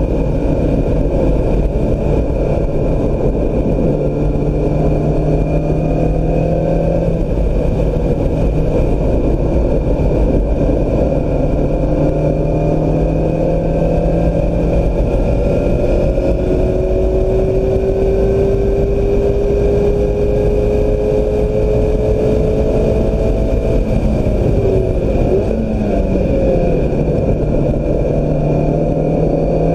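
2016 Mazda MX-5 Miata's four-cylinder engine pulling hard on track, its note climbing slowly in pitch through long pulls, then dipping and picking up again near the end, over constant road and wind noise.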